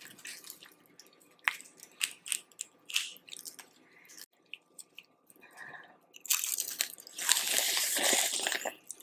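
Boiled crawfish being cracked open and eaten close to the microphone: scattered sharp shell snaps and crunches with chewing, then a louder, longer stretch of noise about six seconds in.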